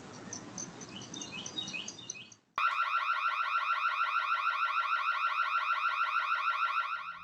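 Ring security camera's built-in siren, set off remotely to scare off an intruder: a loud, rapidly pulsing electronic alarm tone that switches on abruptly about two and a half seconds in and stops shortly before the end. Before it, faint outdoor background with a few bird chirps.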